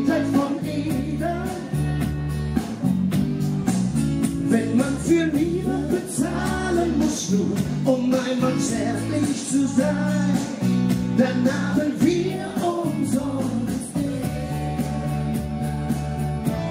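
A man and a woman singing a song live into microphones over amplified backing music with guitar.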